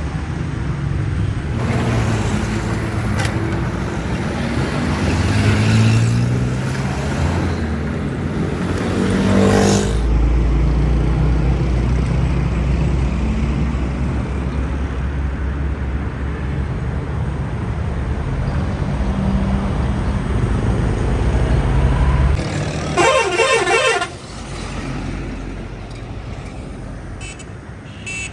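Busy road traffic: heavy vehicle engines running and passing, with a deep low rumble through the middle. A vehicle horn sounds for about a second near the end.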